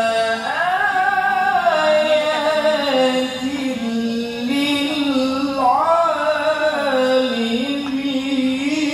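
A man's solo voice singing unaccompanied into a microphone in a chant-like style, holding long notes and ornamenting them with pitch slides and turns.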